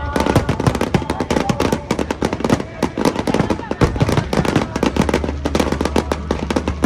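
Aerial fireworks shells bursting in a dense, rapid barrage, bang after bang with crackling, many per second without a break.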